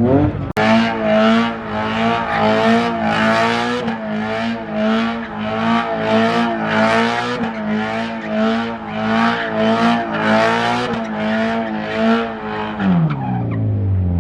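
A car engine held at high, steady revs while its rear tyres screech in repeated swells, a little more than one a second, as the car drifts. Near the end the revs drop away.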